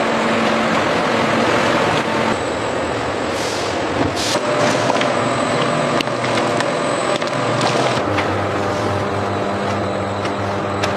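Machinery running with a steady noise, with scattered clicks and knocks.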